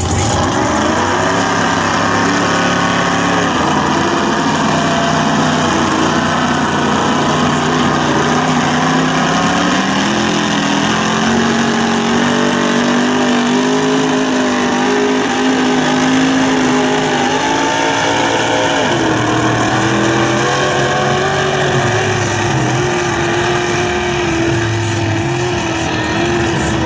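Lifted mud truck engine revving hard under load while driving through deep mud, the engine note climbing twice and holding at high revs.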